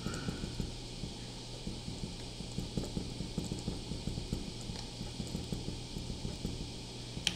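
A pen writing kanji on paper: a quick, irregular run of short scratching and tapping strokes over a low steady hum, with one sharper click near the end.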